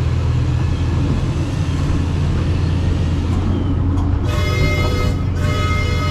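The park train's motor runs with a steady low rumble as the train rolls along. About four seconds in, a steady high-pitched horn tone sounds. It stops briefly and then sounds again, held long.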